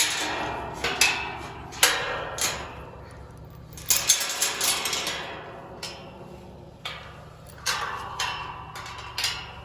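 Metal farm gate clanking and rattling as it is unlatched and swung open: about a dozen sharp metallic knocks, each with a short ring, at uneven intervals.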